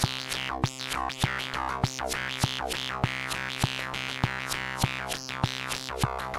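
Electronic synth jam on an Arturia MicroFreak synthesizer and a Korg volca drum: sustained synth tones with bright, falling sweeps over a steady drum hit about every 0.6 seconds.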